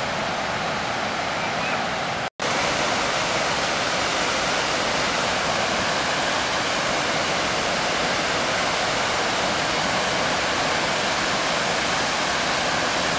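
A waterfall and river whitewater rushing steadily over rocks, broken by a split-second gap about two seconds in where the recording cuts.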